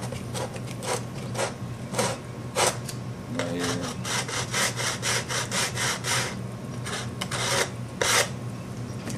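Sanding block rubbed back and forth over the wooden edge of a model airplane fuselage in a run of short scratchy strokes, quickest in the middle, scuffing the wood so epoxy will grip.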